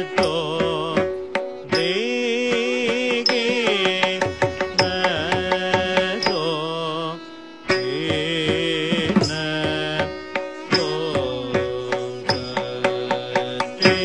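Carnatic music: an ornamented melody with sliding, wavering notes over hand-drum strokes and a steady drone. The music breaks off briefly about seven seconds in.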